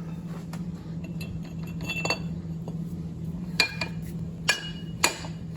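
Sharp metallic clinks and taps of steel pipe and threading-machine parts being handled and set up for threading, about six of them after the first couple of seconds, each with a brief ringing. A steady low hum runs underneath.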